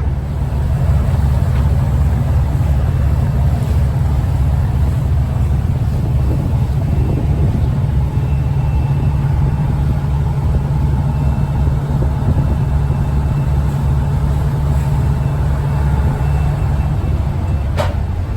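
Steady low rumble of a Moskva-class river passenger boat's engine running under way, with a single sharp click near the end.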